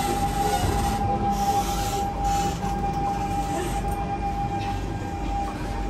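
Interior noise of a C651 MRT train carriage on the move: a continuous low rumble from the running gear with a steady high-pitched whine that fades out near the end.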